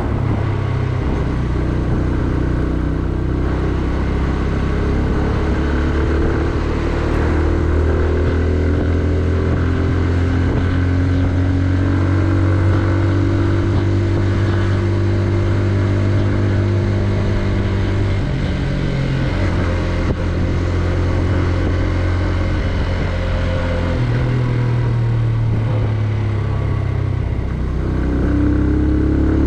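Benelli Leoncino 125's single-cylinder engine running steadily under way, its note stepping to a new pitch a couple of times, and rising and growing louder near the end.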